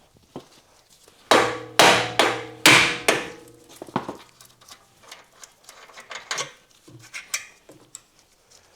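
Hammer striking steel on a car's front suspension: four hard, ringing blows about half a second apart, then lighter clinks and taps, knocking loose a stubborn part during driveshaft removal.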